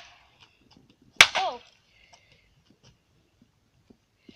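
A hatchet chops once into a plastic toy rifle lying on asphalt, a sharp hit about a second in with a brief falling tone right after it. Faint scattered ticks follow, and a quick cluster of clicks comes near the end.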